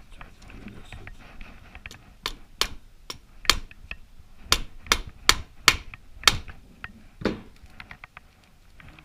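A hammer striking a hand impact driver: about nine sharp metal blows at uneven intervals, starting about two seconds in and ending near seven seconds in. The blows are to break loose engine screws thought to be held with red Loctite.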